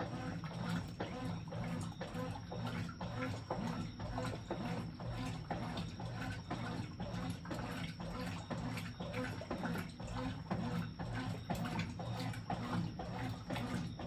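Brastemp 11 kg BWJ11 washing machine washing at a high water level: a steady motor hum under water sloshing, with quick, irregular chugging strokes several times a second.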